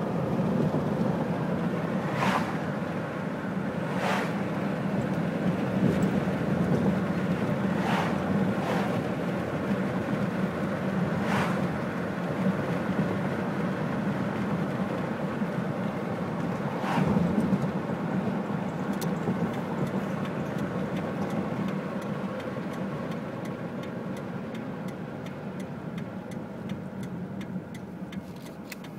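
Car driving along a road, heard from inside the cabin: a steady low engine and tyre rumble, with about six short knocks over the first seventeen seconds. Near the end the rumble eases and faint, evenly spaced ticks come in.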